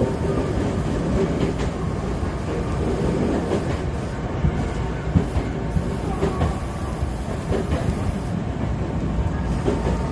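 Commuter train on the Hankyu Senri Line running at speed, heard from inside the front car: a steady rumble of wheels on rail, with a few scattered clicks as the wheels pass rail joints.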